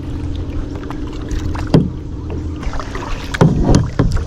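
A kayak moving across the water: a steady low hum at first, then several sharp strokes and knocks near the end.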